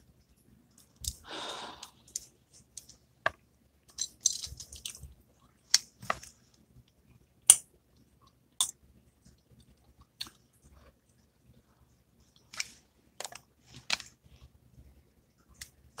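Sparse small sharp clicks and crunches close to the microphone, scattered irregularly through a pause, with a short soft rustle about a second in.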